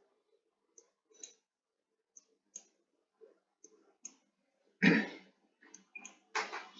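Computer mouse clicking, a series of short, irregular single clicks, with one louder short noise about five seconds in.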